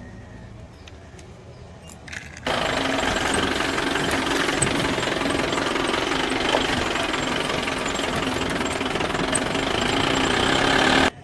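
Steady, engine-like mechanical noise that starts suddenly about two and a half seconds in and cuts off abruptly near the end.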